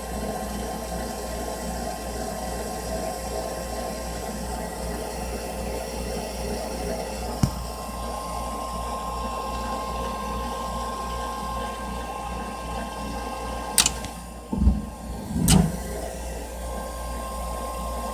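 Furnace running with a steady hum and a thin whine over a rushing hiss. There is a sharp click about seven seconds in, and another click followed by two low thumps near the end.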